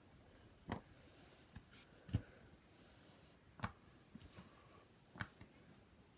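Bubbles of a Mickey Mouse–shaped silicone pop-it fidget toy being pressed, giving soft, irregular pops about a second apart.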